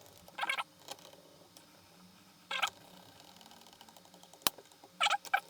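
Small screws being fitted into a laptop's bottom case: three short bursts of scraping and clicking from the screw work, about half a second, two and a half and five seconds in, with one sharp click just before the last.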